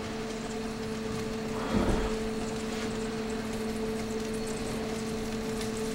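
Wine pan sauce simmering steadily in a sauté pan on a gas burner, under a steady low hum, with a brief louder stir of sound about two seconds in as capers go into the pan.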